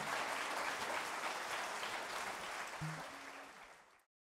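Audience applauding at the end of a live song; the applause fades down near the end and then cuts off to silence.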